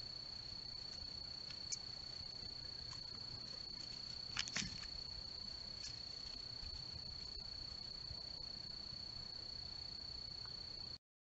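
A cricket trilling steadily on one high note through the summer night. A few soft clicks or snaps come about four and a half seconds in, and everything cuts off abruptly just before the end.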